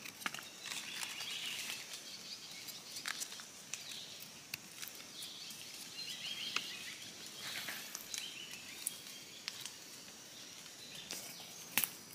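Faint forest ambience: scattered small clicks and rustles of dry leaf litter and handling close by, with faint bird chirps now and then.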